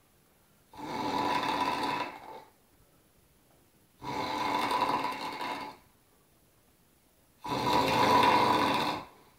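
Snoring: three long snores about three seconds apart, each lasting about a second and a half, with quiet breathing gaps between.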